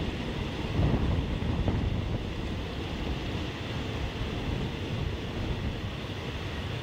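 Passenger train running along the track, heard from a carriage window: a steady rumble of wheels on rails with wind rushing over the microphone, and a couple of louder knocks about a second in.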